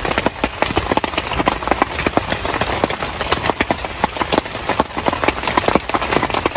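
Heavy rain falling, with large drops striking close by in a fast, irregular patter of sharp taps over a steady hiss.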